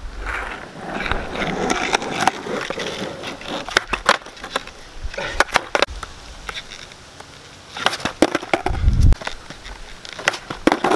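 Skateboard on an asphalt court being set up and popped under a rider's feet: scuffing, then a series of sharp clacks and knocks from the board's tail and wheels striking the ground, with a heavier thud about nine seconds in.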